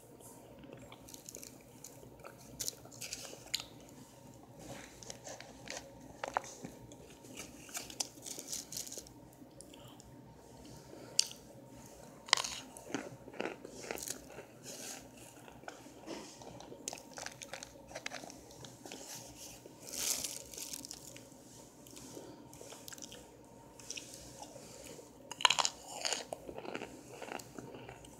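A person biting and chewing chunks of compressed cornstarch, with irregular sharp crunches and softer chewing between them.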